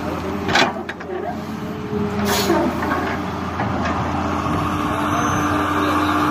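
John Deere 595D wheeled excavator's diesel engine running under working load, its hum shifting as the hydraulics move the arm and bucket. Two brief rushes of noise come about half a second and two and a half seconds in.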